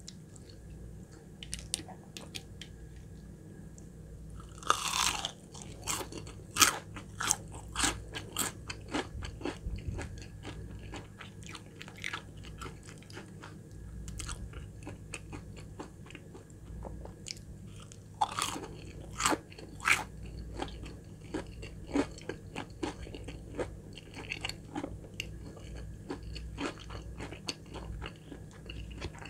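A person biting into and chewing crispy breaded Popeyes chicken nuggets. The sound is a run of sharp crackling crunches from the fried crust, with loud bites about five seconds in and again around eighteen to twenty seconds in, and quieter crunchy chewing between them.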